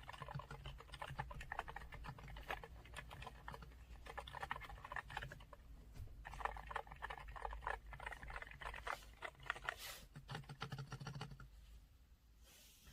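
Typing on a Yunzii C68 mechanical keyboard with LCET silent Milky Green switches: fast, steady runs of key presses, thinning briefly about halfway and tailing off near the end.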